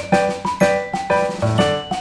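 Background music: a lively tune of pitched instrument notes over a steady drum beat.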